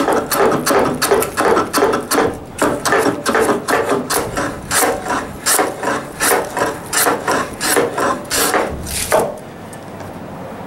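Japanese wooden hand plane (kanna) taking quick, short shaving strokes along a strip of osage orange, about three strokes a second, trimming the stop down to height. The strokes stop about a second before the end.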